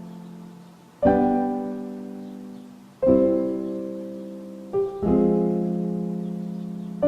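Background music: slow piano chords, struck about every two seconds, each left to ring and fade.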